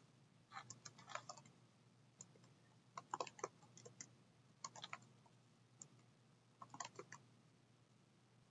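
Faint computer keyboard typing: several short runs of keystrokes with pauses between them.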